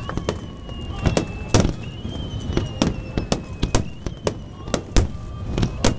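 Aerial firework shells bursting overhead in a fast, irregular string of sharp bangs, about two a second, as a fireworks finale. A thin high tone drifts down in pitch between the bangs.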